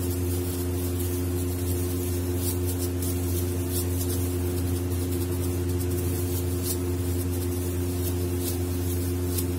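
A steady machine hum, with a low drone, several fixed tones above it and a hiss, running unchanged. Faint light crinkles come from plastic gloves handling a kabab patty.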